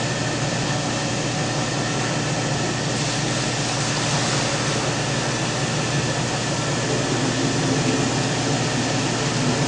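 Small electric cream separator running steadily, a continuous whirring hum, as it separates cream from raw cow's milk while more milk is poured into its bowl.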